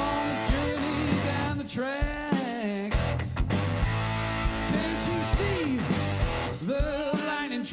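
Live blues-rock band playing: electric guitar, bass guitar and drums, with a lead part that bends and wavers in pitch about two seconds in and again near the end.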